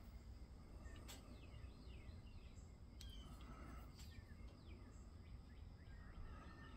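Near silence: faint, repeated short bird chirps in the background, with a few soft clicks from handling the brake lever.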